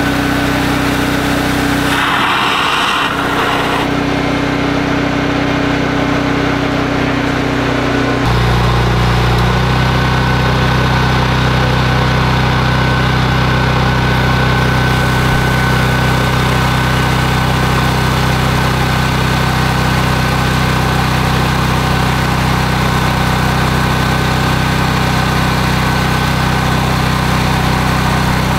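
An engine running steadily, its note shifting to a lower, stronger hum about eight seconds in, with water jetting out of a pressure tank's open PVC drain line.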